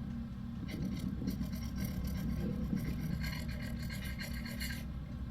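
A wax-sealed box being shaken and worked at its lock: a quick run of rattling and scraping clicks for about four seconds, over a steady low rumble.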